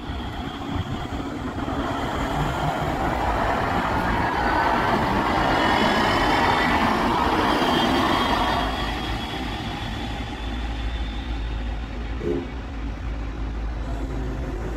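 A KVB Stadtbahn light-rail train passing over a level crossing: the rumble of its wheels on the rails swells to a peak about halfway through and fades as it moves off, with a faint high whine over it. A low steady hum comes in near the end.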